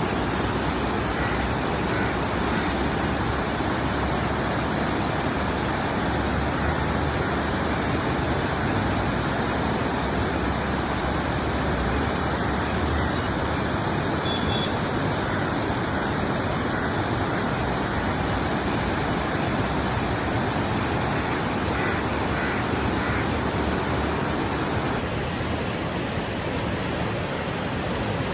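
Kunhar River, a fast-flowing mountain river, rushing: a steady, even roar of water that holds constant throughout.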